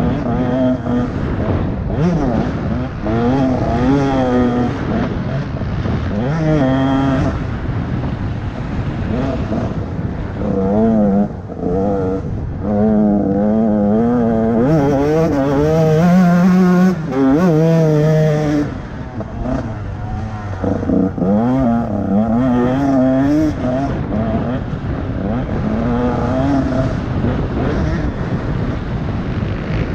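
Motocross bike engine from on board, revving hard and backing off again and again through the track's jumps and turns, its pitch climbing and falling with each throttle change; the longest, highest pull comes about halfway through, with brief drops in the engine's sound near 11 and 19 seconds in.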